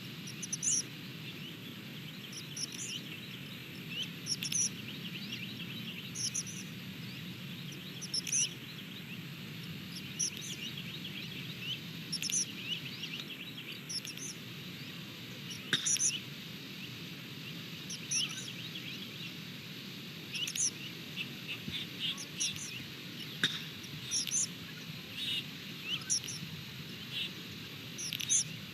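Small birds calling outdoors: a short, high call repeated about every two seconds, with quicker, lower chirps and twitters in between, over a steady low background rumble.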